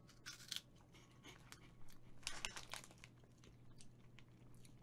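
Faint crunching as a person chews a puffed cheese snack ring (like a cheese puff), in a few short bursts, over a steady low electrical hum.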